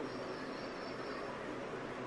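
Steady room hiss with a faint low hum. During the first second or so there is a faint high-pitched squeak from a marker drawing on a whiteboard.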